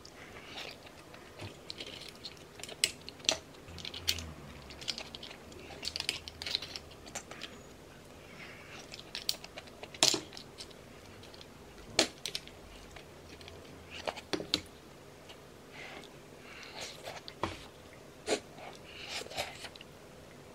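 Clam shells clicking and wooden utensils tapping against a ceramic pot as steamed surf clams are picked out and eaten. Irregular sharp clicks, several of them loud, with soft chewing between.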